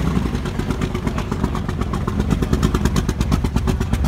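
A vehicle engine running at idle, with a rapid, even pulsing.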